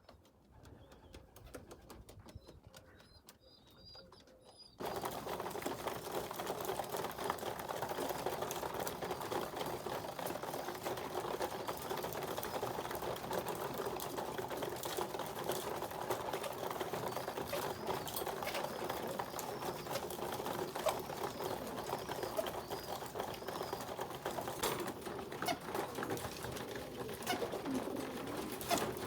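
Racing pigeons in a loft: scattered clicks and faint high chirps, then from about five seconds in a sudden, dense, steady wash of many pigeons cooing.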